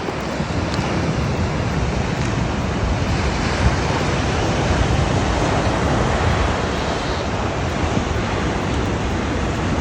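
Ocean surf washing onto a sandy beach, a steady rushing wash, with wind buffeting the microphone.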